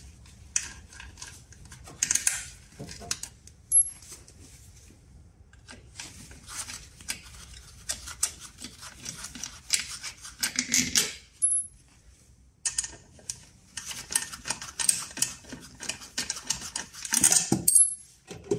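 Hand tools and loose metal parts clinking and clicking as a scooter's transmission cover is taken apart, with stretches of rapid clicking.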